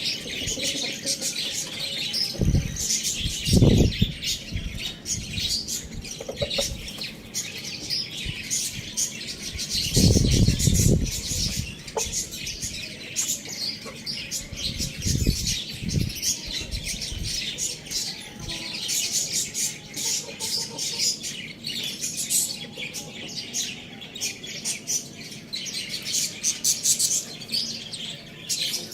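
A flock of small birds chirping continuously in dense, overlapping high calls. Three louder low bursts break in, about 3, 10 and 15 seconds in.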